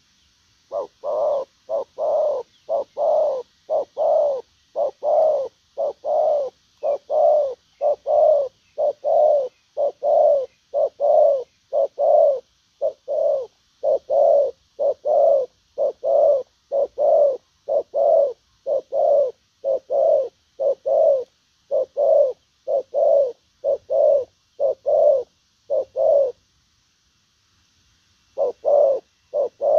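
Spotted dove cooing a long, unbroken run of short, even coos, about two a second, in the steady 'gù' style of a decoy bird calling in a wild dove. The run breaks off for about two seconds near the end, then starts again.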